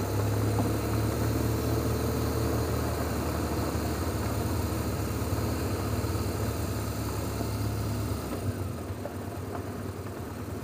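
Motorcycle engine running steadily at low speed on a gravel road, picked up by a helmet-mounted camera. The engine sound drops off about eight seconds in as the bike slows.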